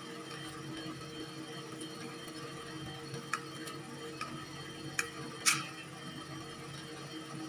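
Kitchen scissors cutting through a crisp whole fried chicken held with metal tongs: a few sharp snips and clacks of blades and tongs, the loudest a little past the middle, over a steady low hum.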